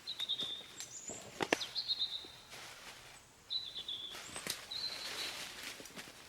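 A songbird singing short chirping phrases, four times at intervals of about a second and a half. There are two sharp clicks, about a second and a half in and again about four and a half seconds in.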